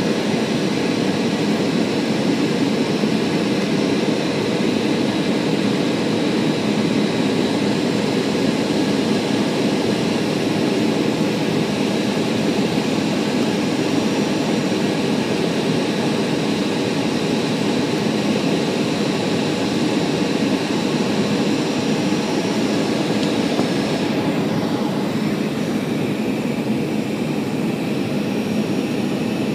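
Steady in-flight cabin noise inside a Boeing 737: jet engine drone and rushing airflow, with a few faint steady whines high up. The high hiss softens a little near the end.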